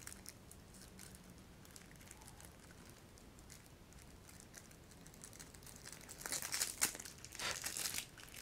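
Plastic wrap on a pack of cards crinkling as the pack is unwrapped, a run of rustling starting about five and a half seconds in after a few faint ticks.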